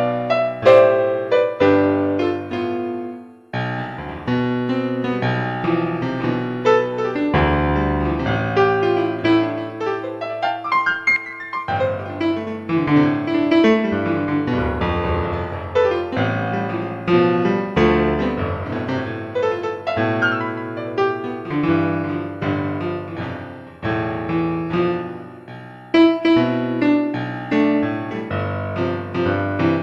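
Solo piano music: a flowing passage of many struck notes over low bass notes, with a short pause about three and a half seconds in.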